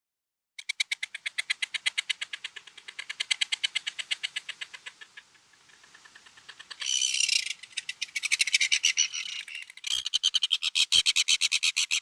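Seagull calls: a rapid, even chatter of about ten notes a second, starting about half a second in and coming in three long runs, the last the loudest.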